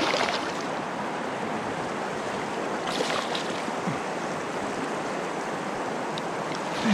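Steady rushing of moving water, with brief louder flurries near the start and about three seconds in.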